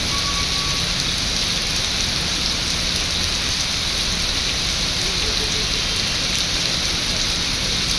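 Heavy rain pouring onto wet concrete paver blocks: a steady, dense hiss of drops that neither rises nor falls.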